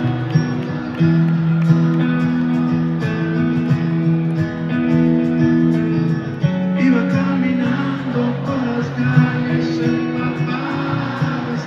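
Live band music heard from an arena's upper seats: strummed acoustic guitars holding chords, with a singing voice in the mix from about halfway through.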